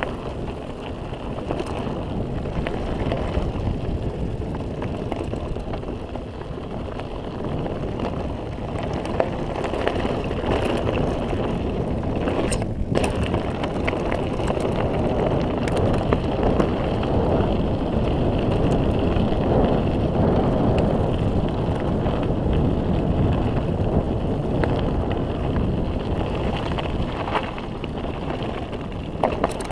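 Mountain bike rolling fast down a dirt and gravel track: wind rushing over the microphone, tyres on loose ground and the bike rattling, with scattered sharp knocks from bumps. Louder in the second half.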